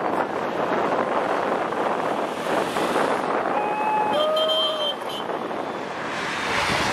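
Road noise of a military convoy of wheeled armoured vehicles passing on a highway, with wind buffeting the microphone. Brief shouts or calls from onlookers come about halfway through.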